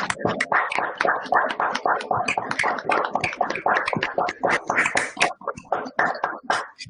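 Applause from several people clapping at once over a video call: many quick, irregular claps overlapping.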